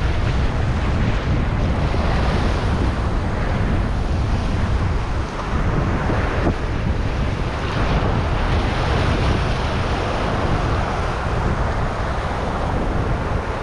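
Wind rumbling on the microphone over sea waves washing against shoreline rocks, the wash swelling and fading every few seconds.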